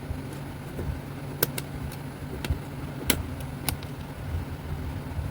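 About four short, sharp clicks and taps from flat-pack cabinet parts and screws being handled during assembly, over a steady low background rumble.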